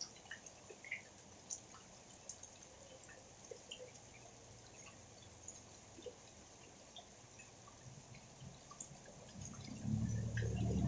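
Rain dripping: a faint steady hiss with scattered drops landing. A low rumble swells up near the end.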